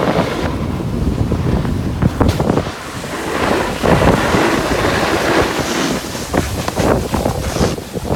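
Wind buffeting a phone microphone while riding a snowboard downhill, mixed with the rasp of snowboard edges scraping over packed snow, more broken up in the second half.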